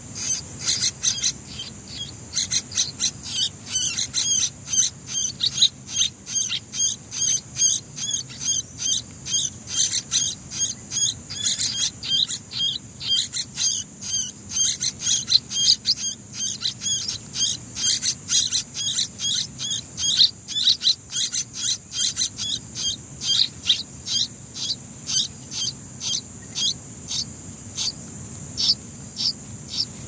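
Yellow-vented bulbul nestlings begging: rapid, repeated high chirps, about three a second, while the parent feeds them fruit. The calls space out near the end. A steady high insect drone runs underneath.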